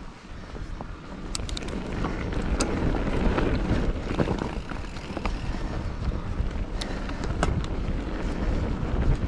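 Wind rushing over the microphone and mountain bike tyres running over a rough trail, getting louder about a second in as the bike picks up speed. Scattered sharp clicks and rattles come from the 2016 YT Capra AL 1 bike.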